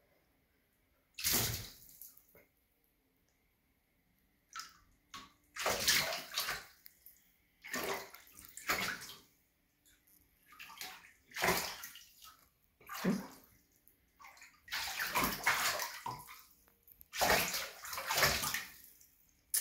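A serval pawing and swiping at shallow water in a bathtub as it hunts live goldfish, making irregular bursts of splashing and sloshing every second or two with short quiet gaps between.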